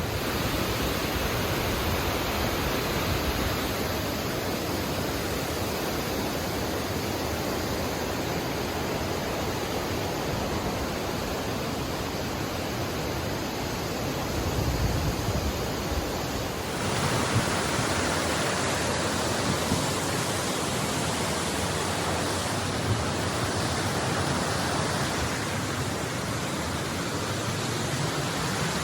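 Steady rush of falling water from a river's falls and cascades. About seventeen seconds in, the sound changes abruptly to a brighter rush.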